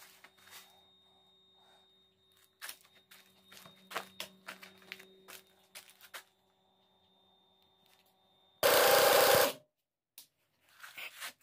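Impact wrench on the crankshaft pulley bolt of a Ford Courier 1.8 engine, one loud rattling burst of just under a second about three quarters of the way in. Before it, light clicks and knocks of tools and parts being handled.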